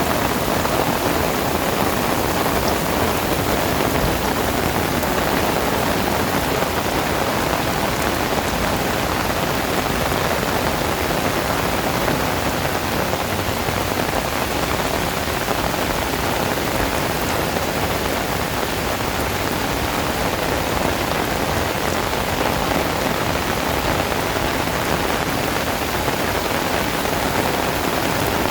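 Heavy rain falling steadily on hard surfaces, a dense, even hiss.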